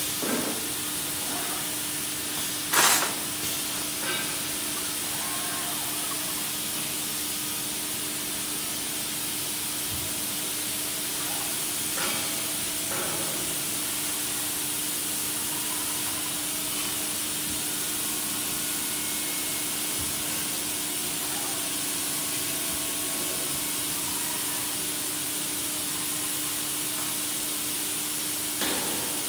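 Steady hiss and a low machine hum from a robotic press-brake bending cell, with a few short sharp clacks, the loudest about three seconds in.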